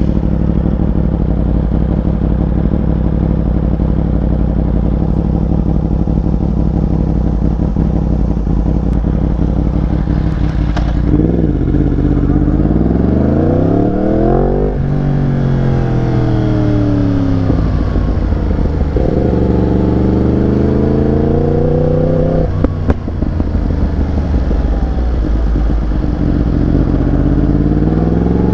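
Yamaha R1 sport bike's inline-four engine under way. It holds steady revs for the first ten seconds or so, then revs climb and drop sharply at an upshift about fourteen seconds in, and the revs fall off. It pulls up again with another gear change around twenty-three seconds, then climbs once more near the end.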